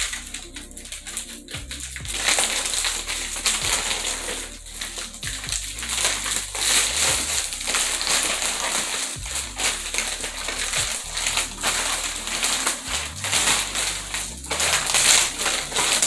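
Plastic packaging crinkling and rustling as a plastic mailer and a clear plastic bag are torn open and pulled off a mannequin head, busier from about two seconds in. Background music with a bass line plays underneath.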